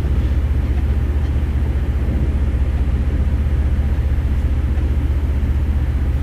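Engine idling steadily: a low, even throb with rapid regular pulses under a broad hum, like a vehicle engine running at idle.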